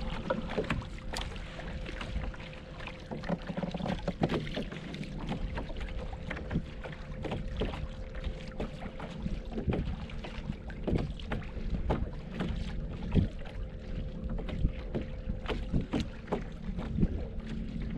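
Water lapping and slapping against the hull of a plastic fishing kayak, with many short irregular knocks and a little wind on the microphone.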